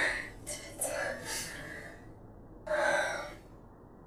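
A woman laughing softly in breathy gasps: a few short airy breaths in the first second and a half, then a stronger gasp of laughter about three seconds in.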